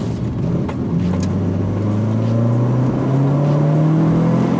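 Renault Clio 172's 2.0-litre four-cylinder engine and exhaust heard from inside the stripped-out cabin: the revs drop at a gear change about a second in, then rise steadily as the car accelerates.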